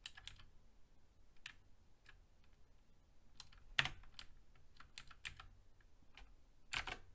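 Computer keyboard typing: scattered, irregular keystrokes with short pauses between them, as a line of code is edited.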